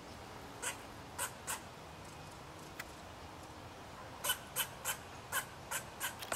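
Gray squirrel alarm calls: short, sharp barks, three spaced out early on, then a quicker run of about three a second from about four seconds in. The squirrel is raising the alarm at a stalking cat.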